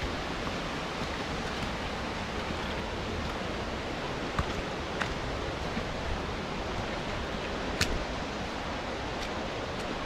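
Steady rush of flowing water from a mountain stream, with three sharp clicks, two about halfway and one near the end.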